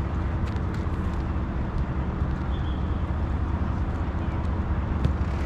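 Steady low outdoor rumble on the microphone, broken by a few faint sharp knocks of soccer balls being struck.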